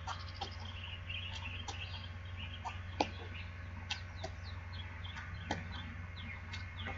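Birds chirping and calling in many short, quick chirps, some falling in pitch, with a few sharp ticks, over a steady low hum.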